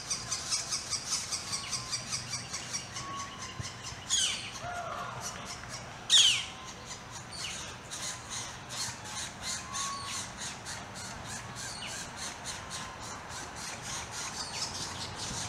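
Northern flicker nestlings begging: a fast run of short, high calls, about four a second, broken by two loud, harsh squawks that sweep down in pitch about four and six seconds in.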